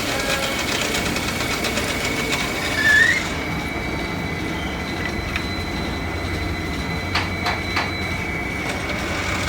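Workshop machinery running steadily with a high, even whine. A short rising squeal comes about three seconds in, after which the hiss thins out, and a few sharp clicks come near the end.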